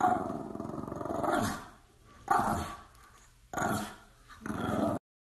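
French bulldog growling in four drawn-out bursts, the first the longest.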